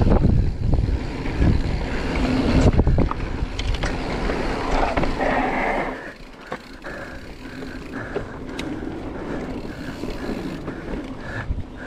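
Marin Mount Vision 8 mountain bike rolling fast down a dirt singletrack: wind on the microphone, tyre rumble and knocks and rattles from the bike over the trail. About six seconds in it gets quieter, and a short high note repeats roughly twice a second.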